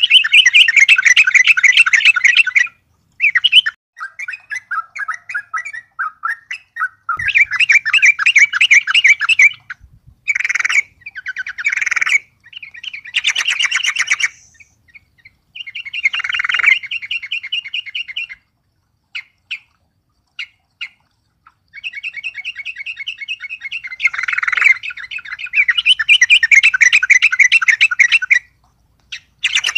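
Yellow-vented bulbul (trucukan) singing loud, rapid chattering phrases a few seconds long, broken by short pauses, with a few single short notes in the middle. It is singing hard, stirred up by a rival bird.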